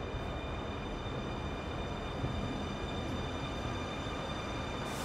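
Shanghai Metro Line 16 train running between stations, heard from inside the carriage: a steady rumble of wheels on track with a steady high whine above it. A single sharp click comes near the end.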